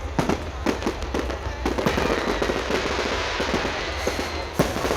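Fireworks display: a series of sharp bangs, with a dense spell of crackling through the middle, ending in one more loud bang.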